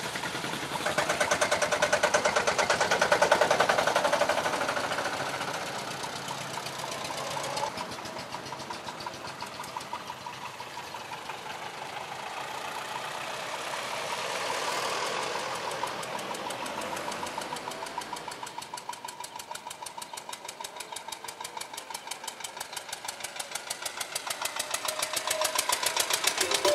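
Vintage tractor engines chugging as the tractors drive past one after another, with an evenly pulsing exhaust beat. It is loudest as one passes close in the first few seconds, swells again around the middle as the next one goes by, and builds again near the end.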